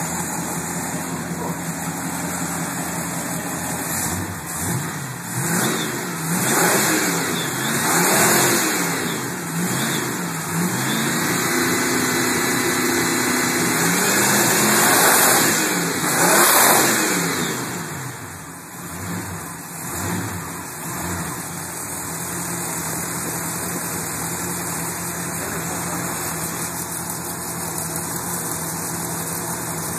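V8 engine idling, then revved over and over in quick blips and one longer held rev, its pitch rising and falling, before it settles back to a steady idle for the last third.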